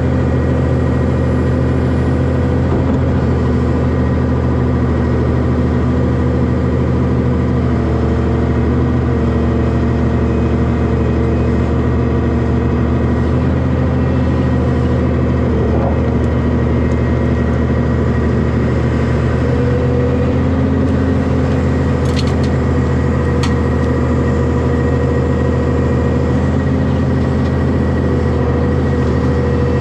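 Heavy diesel engine running steadily at an even speed, with two faint clicks about two-thirds of the way through.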